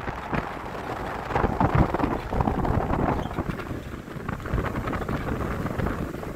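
Wind buffeting the microphone in uneven gusts on the open deck of a moving boat.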